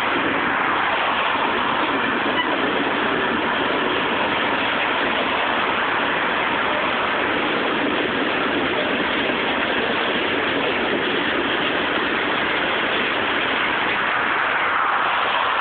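Freight cars of a passing train rolling by, a steady even rush of wheel-on-rail noise.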